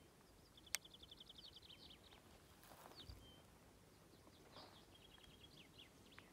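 Small birds singing faintly: a rapid trill of about a dozen quick repeated high notes in the first two seconds, then scattered chirps. A single sharp click under a second in.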